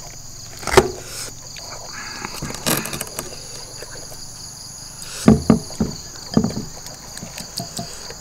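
Close eating and handling sounds of barbecued duck being torn apart and eaten: a few sudden smacks and tears, most of them clustered about five to seven seconds in. Behind them runs a steady high drone of insects chirping.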